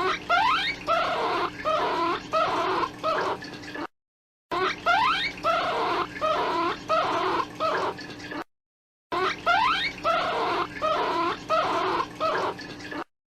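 Recorded hare calls: a clip of harsh cries that opens with quick rising glides, played three times in a loop with short silent gaps between.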